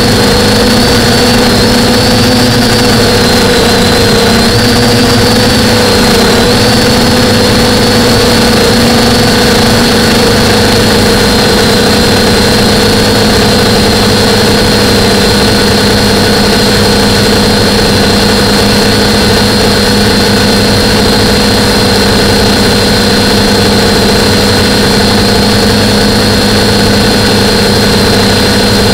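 DJI F450 quadcopter's four brushless motors (DJI E300, 920kV) spinning 9.4-inch props in steady flight, picked up by the onboard action camera: a loud, constant drone with a high whine that wavers for the first several seconds, then holds steady.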